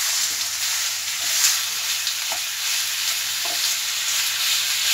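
Minced chicken sizzling in hot oil with sautéed onions in a frying pan as it is stirred in with a spatula: a steady sizzle with a few light scrapes and taps of the spatula against the pan.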